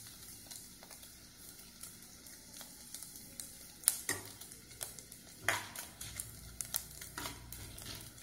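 Sago pearls deep-frying in hot ghee, a steady faint sizzle, with a few sharp clicks as a metal slotted spoon knocks the pan, the loudest about four seconds in.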